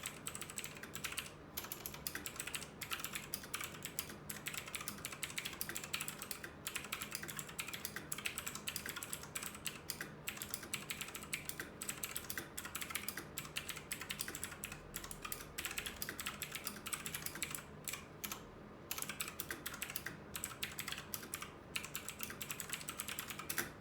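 Typing on a Lingyi K52 mechanical keyboard with blue Outemu switches: a continuous run of clicky keystrokes, with a short pause about nineteen seconds in.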